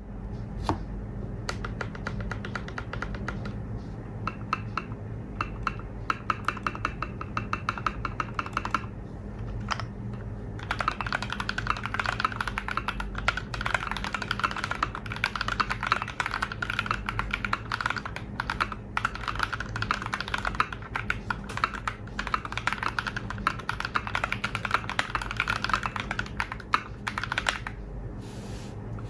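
Typing on an NJ68 mechanical keyboard with lubed Holy Panda tactile switches in a stainless steel plate: a steady stream of fast keystrokes, getting denser from about ten seconds in.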